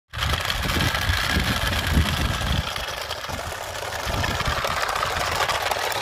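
Toy truck running on rough asphalt: a steady grinding rattle from its small motor and plastic wheels, with a low rumble during the first two and a half seconds.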